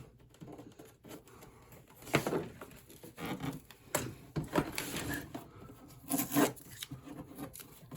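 Irregular light knocks and rubs from hands handling and flexing a repaired fiberglass RC boat hull, the Proboat Veles 29, a handful of scattered taps over several seconds.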